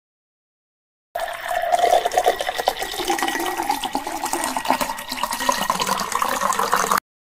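Sprite soda poured from a can over ice into a glass mug, splashing and fizzing with a dense crackle of bursting bubbles. It starts about a second in and cuts off abruptly near the end.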